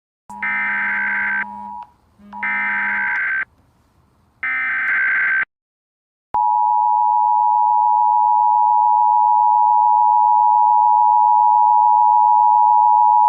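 Emergency Alert System SAME tones: three warbling digital data bursts of about a second each, then the steady two-note EAS attention signal (853 and 960 Hz) sounding for about eight seconds. This is the start of a new alert.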